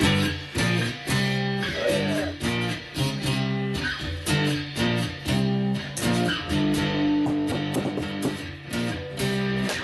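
Acoustic guitar strummed in chords at a steady rhythm, the chords changing every second or so.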